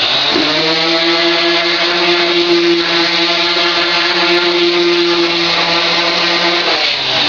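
Electric palm sander running steadily with an even hum, scuff-sanding the first coat of finish on oak stair treads so the next coat will adhere; it starts just after the beginning and stops near the end.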